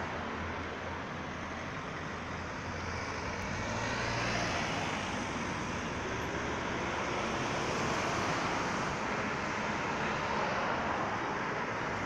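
Road traffic at a roundabout: several cars driving past close by, a steady mix of engine and tyre noise, a little louder from about four seconds in, with one engine note rising near the end.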